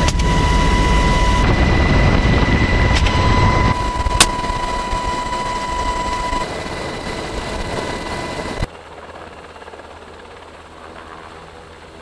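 Inside a UH-60 Black Hawk helicopter: loud, steady rotor and turbine noise with a high whine, and a single sniper rifle shot about four seconds in. Near the end the sound drops to a quieter helicopter hovering at a distance.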